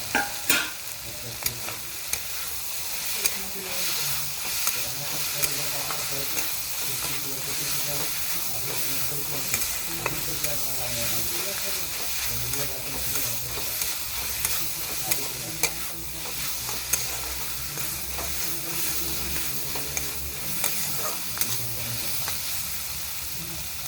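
Capsicum and onion masala sizzling in hot oil in a pan as it is stirred, with a spatula clicking and scraping against the pan every second or so.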